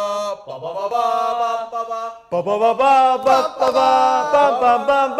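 A man's voice holding long, drawn-out sung notes with pitch bends and glides, in two phrases with a brief break about two seconds in.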